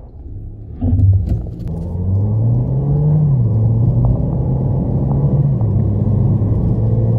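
Mahindra XUV700's 2.0-litre turbo-petrol four-cylinder engine accelerating hard from a standstill, heard from inside the cabin. The engine note jumps up about a second in, then climbs and drops back twice as the automatic gearbox upshifts.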